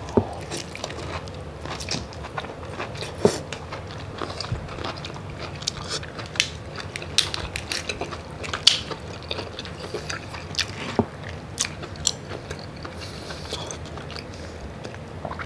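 Close-miked eating of tiger prawns in garlic-butter sauce: irregular biting and chewing with wet smacks and sharp clicks as the prawn heads and shells are bitten and pulled apart.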